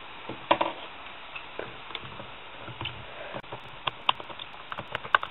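Irregular light clicks and taps from handling a PSP handheld at its back screws, with a cluster of quick clicks near the end.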